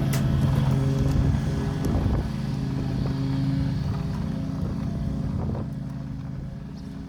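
A motor vehicle's engine running steadily with an even hum, growing gradually fainter as it moves away.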